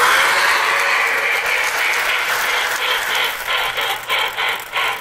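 Lionel toy steam locomotive's built-in steam sound effects: a steady hiss, then from about halfway a rhythmic electronic chugging, about three chuffs a second.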